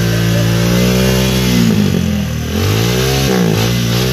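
Motorcycle engine being revved while standing still: the engine note is held high for about two seconds, drops back, then is blipped up twice more in quick succession near the end.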